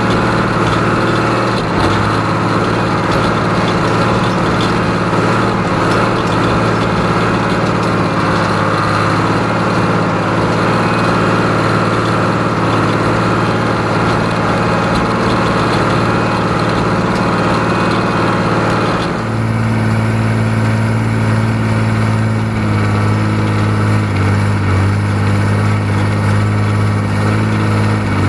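John Deere 3130 LS tractor's six-cylinder diesel engine running steadily. About two-thirds of the way through its note changes, becoming less bright with a stronger low drone.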